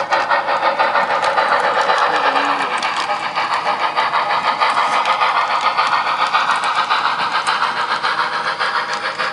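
A sound-equipped model K27 steam locomotive working in the yard: quick, even steam chuffs over a continuous hiss, easing off slightly near the end.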